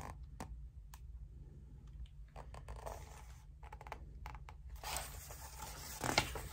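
Faint rustling, scraping and ticking of hands handling the paper pages of a hardcover picture book, with a sharper tap about six seconds in.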